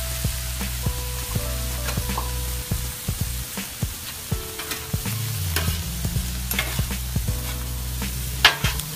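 Meat and vegetables sizzling on a steel flat-top griddle, with metal spatulas clicking and scraping on the cooktop as the vegetables are tossed. There is a sharp clack near the end, over background music with a steady bass line.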